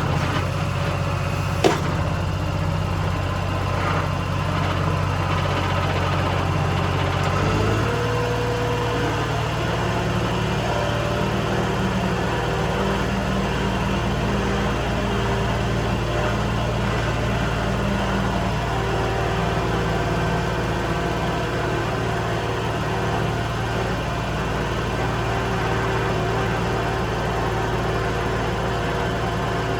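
New Holland skid steer's engine running steadily; its engine note shifts up about seven seconds in and then holds. A single sharp click near the start.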